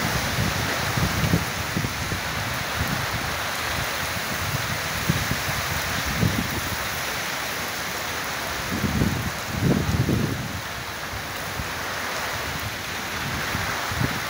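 Heavy storm rain falling steadily, with irregular low gusty rumbles that are loudest about nine and ten seconds in.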